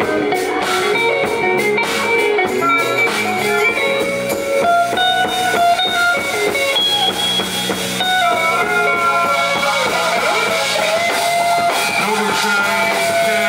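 Electric guitar solo played live: quick runs of short notes at first, then long sustained notes, some bent in pitch near the end.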